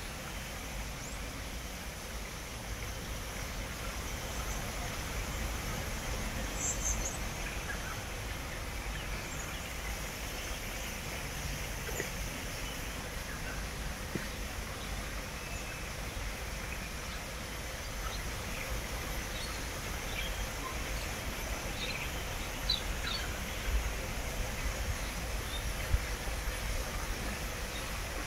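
Outdoor ambience: a steady low rumble with scattered short, high bird chirps, a small cluster of them about seven seconds in.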